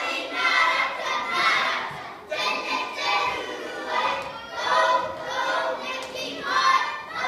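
A large group of children chanting a haka in unison, loud shouted phrases in bursts about once a second.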